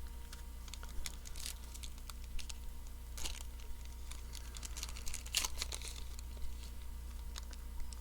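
Foil trading-card pack wrapper being crinkled and torn open: irregular crackles and rustles, with a few louder crinkles about a second and a half, three and five seconds in.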